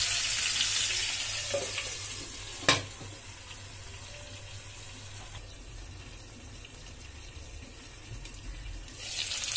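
Chicken pieces sizzling in hot oil and butter in a frying pan. About two and a half seconds in, a glass lid clacks down onto the pan, and the sizzle goes on quieter and muffled under it. The loud sizzle returns just before the end.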